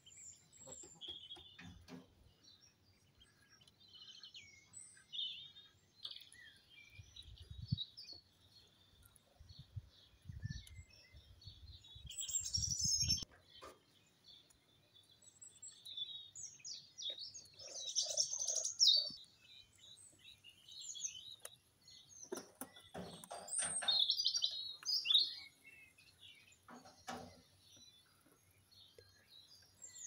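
Black coturnix quail chirping in short, scattered calls, with the loudest bursts about halfway through and again about three-quarters of the way in. A low rumble comes before the halfway point, and a few soft knocks come later.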